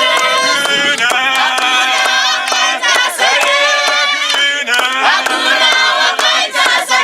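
A crowd of voices singing together in a Shona worship song, a loud mass of overlapping voices in unison, with sharp percussive hits scattered through it.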